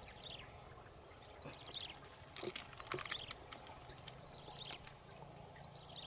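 Riverside ambience: a steady high insect buzz, with a bird repeating a short falling call every second or so. A few light clicks and knocks come from handling near the water.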